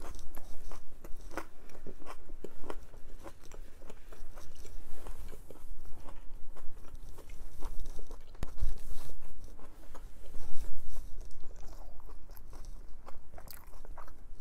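A person chewing food close to the microphone, with crunchy bites and wet mouth sounds in a quick, uneven run of short clicks.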